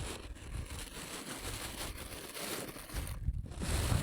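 Wind buffeting the microphone, an uneven low rumble under a faint rustling hiss, which drops away briefly about three seconds in.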